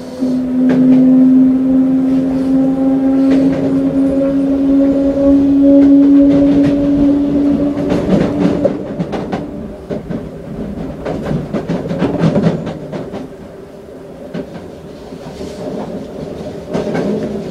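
Toei 5300 series electric train heard from inside the car: the traction motor whine rises slowly in pitch as the train gains speed, then dies away about halfway through. Wheel-on-rail rumble and the clack of rail joints carry on throughout.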